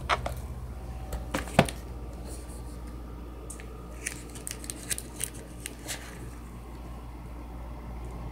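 Pages of a ring-bound photo album being turned and handled, with crisp crackles and clicks from the glossy pages. The loudest is a sharp pair about a second and a half in, and a cluster of lighter clicks follows from about four to six seconds in, over a steady low hum.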